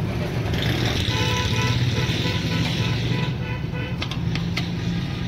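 Steady low rumble of street traffic, with a horn-like tone held for about two seconds starting about a second in. Near the end come a few sharp metal clicks of a ladle and bottle cap against a large steel wok of boiling sugar syrup.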